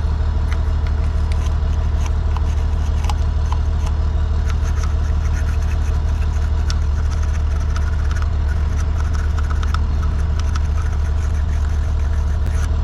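A steady low engine drone, like an engine idling, with light scraping ticks from a wire brush scrubbing corrosion off a battery terminal.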